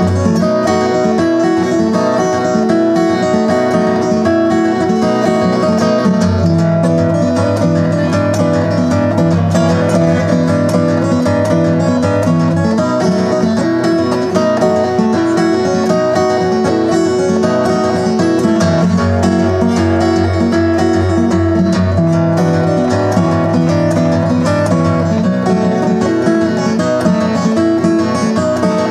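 Background music led by plucked acoustic guitar, playing steadily throughout.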